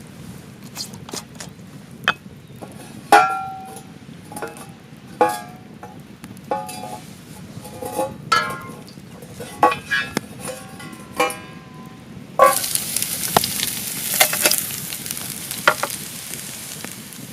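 Metal cookware clinking: a dozen or so sharp knocks, several ringing briefly like a utensil on a metal pot. About twelve seconds in, a loud, steady sizzle starts, as food goes into a hot pan.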